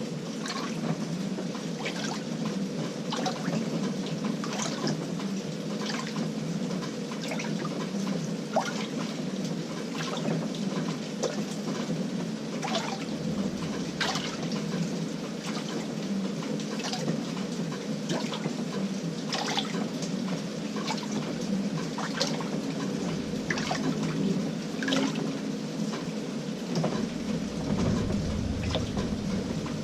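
Water sloshing and splashing in the drum of an LG 18 kg top-load washing machine on a delicate cycle, with frequent small splashes over a steady low hum.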